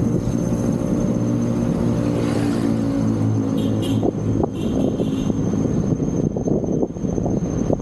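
Motor traffic on a main road: a vehicle's engine drones close by for the first half and then fades away, over a steady rumble of passing traffic.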